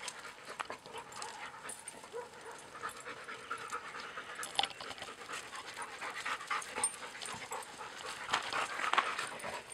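A dog panting in quick breaths, with scattered short clicks mixed in.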